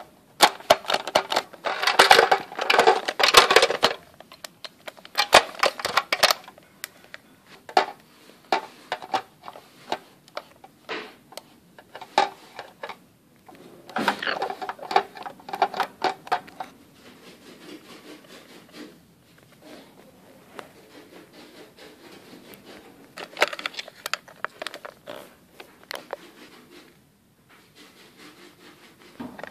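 Plastic toys being handled: a toy shark and Lego pieces clicking and clattering together in several bursts of rapid knocks, loudest in the first few seconds.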